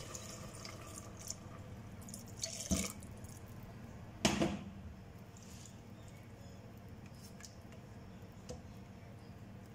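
The last of a pour of chicken stock dripping into a stainless steel pot, with a few sharp knocks, the loudest about four seconds in.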